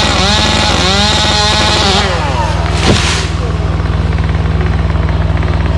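Gas chainsaw at full throttle making the felling back cut on a leaning tree, its pitch dipping and rising as it bogs in the wood, then dropping off about two seconds in. A single sharp crack about three seconds in, over a steady low engine hum.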